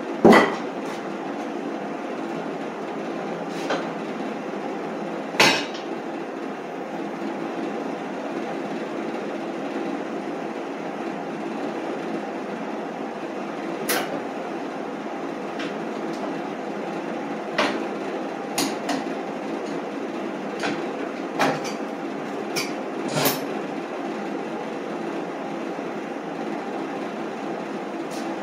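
Sharp metal clanks and knocks, about eight of them at irregular spacing and loudest just after the start and about five seconds in, as a steel hitch plate and clamps are fitted onto an ATV's steel rear rack, over a steady mechanical hum.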